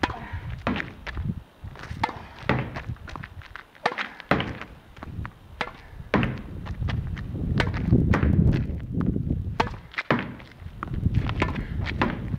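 Tennis rally against a practice wall: the ball cracks off the racket strings, smacks the wall and bounces on the hard court in a quick run of sharp knocks, with a low rumble underneath that swells in the middle.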